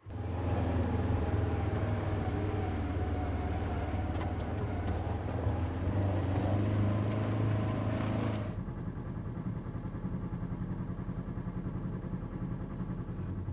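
Side-by-side utility vehicle's engine running as it drives, heard from the seat, with a steady low engine drone under a wide hiss of motion noise. About eight and a half seconds in the hiss drops away, leaving a quieter, steady engine hum.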